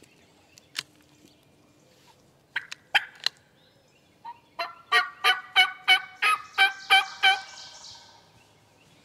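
Turkey yelping: a few short sharp notes, then a loud run of about ten yelps at about three a second.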